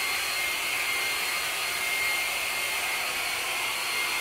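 Handheld hair dryer blowing steadily, a thin whine over the rush of air, drying freshly rolled magnetic wall paint.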